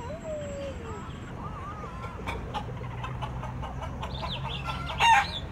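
Chickens clucking, with a short, louder call about five seconds in.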